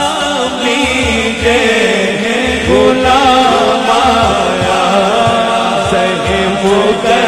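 A male reciter singing an Urdu naat into a microphone in a drawn-out, chant-like melody, over a low pulsing beat.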